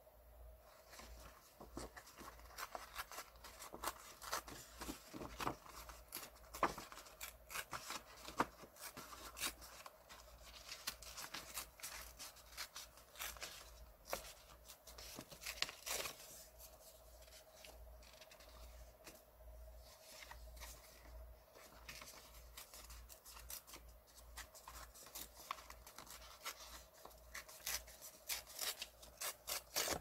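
Thin printed paper being torn by hand, in many short rips and rustles that come and go.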